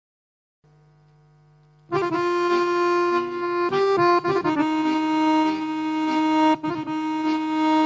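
Guerrini chromatic button accordion playing an instrumental introduction: after a moment of near silence and faint held tones, it comes in loudly about two seconds in with long held notes and a moving melody.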